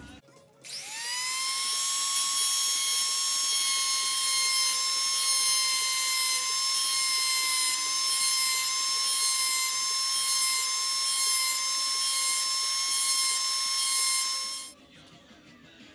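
Small high-speed rotary tool motor spinning up with a rising whine, running steadily at a high pitch for about fourteen seconds, then switched off.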